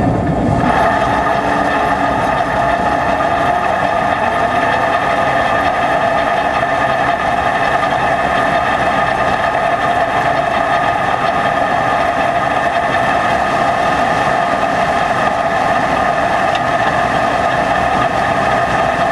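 John Deere 9500 combine running steadily: an even machine drone with a high whine. It sets in about half a second in.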